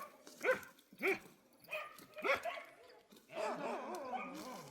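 Dog barking four times, about half a second apart, then a longer wavering sound about three seconds in.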